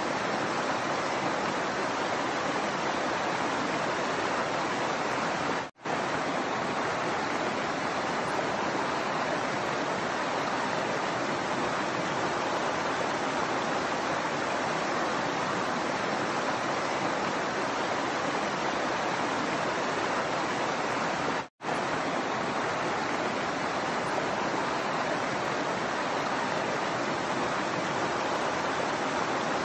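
Shallow rocky stream running steadily over stones and small cascades, a continuous rushing and splashing of water. The sound drops out for an instant twice, about six seconds in and again about twenty-one seconds in.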